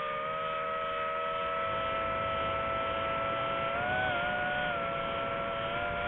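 Quadcopter drone's motors and propellers whining steadily, the pitch rising briefly about four seconds in and then settling back.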